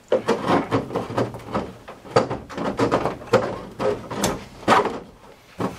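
Plastic upper radiator fan shroud and its wiring being handled and worked loose: a run of irregular knocks, clicks and rattles of hard plastic, thinning out near the end.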